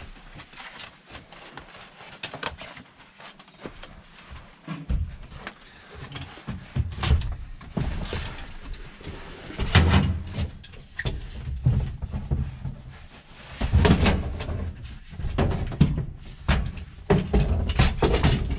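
Folding camp cot being unfolded and set up: its metal-tube frame clicks, clanks and knocks while its fabric rustles, with heavier thumps about halfway through and again later.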